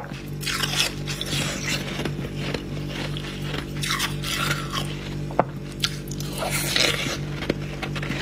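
Freezer frost being bitten and chewed, with crunchy bites and scraping every second or two, over a steady low hum.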